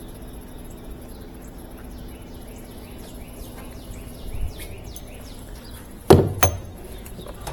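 Two sharp knocks close together about six seconds in, over a faint steady hum and faint repeated chirping.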